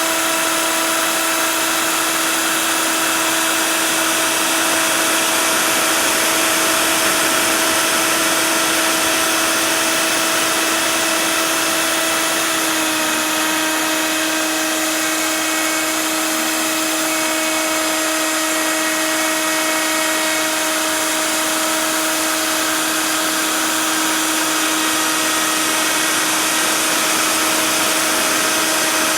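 CNC router spindle whining steadily while cutting expanded PVC sheet, over an even hiss; the whine's pitch steps down slightly about halfway through.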